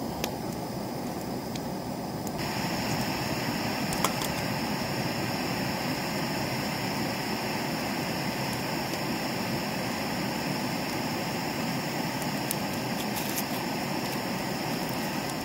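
Firewood burning in a folding fire pit: a steady rushing noise with scattered sharp pops and crackles. The hiss turns brighter a couple of seconds in.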